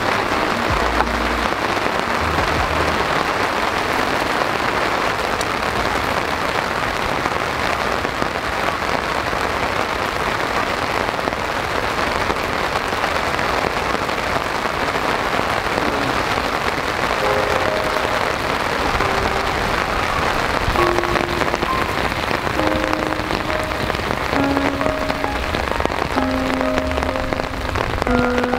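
Heavy rain falling steadily on a camp tarp overhead and the grass around it. Soft background music with short held notes comes in over the second half.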